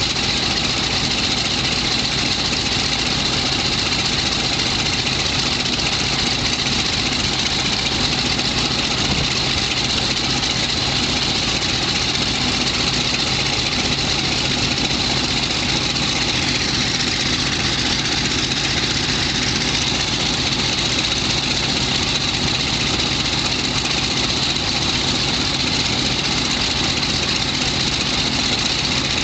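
F4U-1D Corsair's Pratt & Whitney R-2800 radial engine idling steadily, turning its propeller on the ramp.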